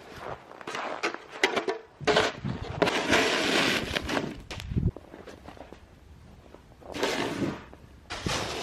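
Snow shovel scraping and pushing through snow in several separate strokes, the longest and loudest about three seconds in.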